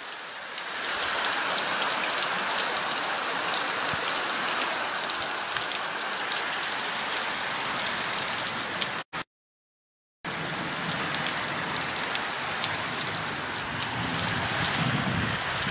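Heavy rain pouring down on a flooded street, a dense steady hiss of rain on water and ground. The sound drops out completely for about a second just after the middle, then carries on the same.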